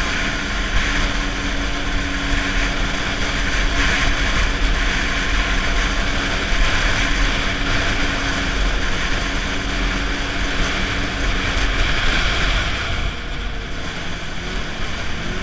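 Snowmobile running at speed on a groomed trail: a steady engine drone mixed with track and snow noise, easing off about thirteen seconds in.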